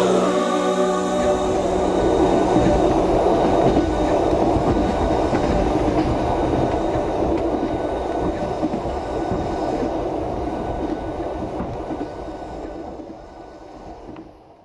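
Music ends in the first half second. After that comes the steady rumbling running noise of a moving vehicle heard from inside it, which fades out over the last couple of seconds.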